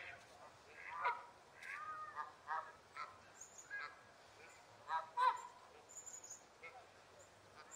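Canada geese honking: a string of short, irregular honks, some overlapping, loudest about a second in and again about five seconds in.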